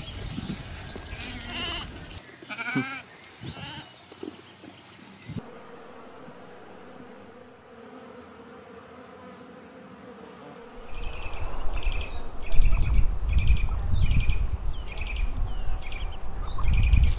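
A drawn-out cow moo held for about five seconds, then short high chirps repeating about twice a second over a loud low rustling rumble.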